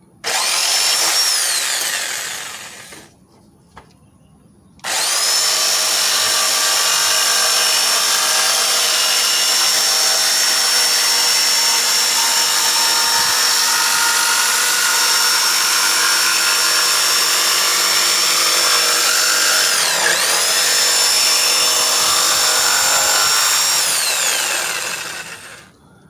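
Porter-Cable corded jigsaw trimming the edge of a wooden tabletop: a short run of about three seconds that winds down, then after a pause a long run of about twenty seconds. Near the end the motor's whine dips once and recovers, then it winds down and stops.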